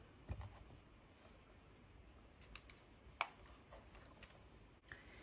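Near silence with a few faint clicks and taps of a plastic handheld-PC case being turned over in the hands, the sharpest about three seconds in.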